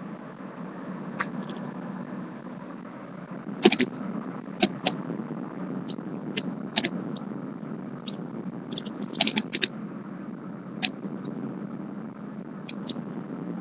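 Steady road and engine noise inside a moving car's cabin, with short sharp clicks and knocks scattered through it, the loudest about four seconds in and a quick cluster of them around nine seconds.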